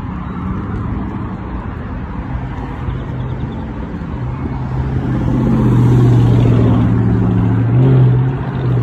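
A car engine running at a steady low pitch, growing louder about halfway through, with a brief rise in pitch near the end.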